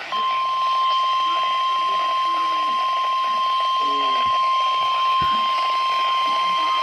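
NOAA Weather Radio's 1050 Hz warning alarm tone: one steady, loud single-pitched tone that switches on abruptly and holds unchanged. It is the alert tone sent ahead of a National Weather Service warning broadcast, here a severe thunderstorm warning.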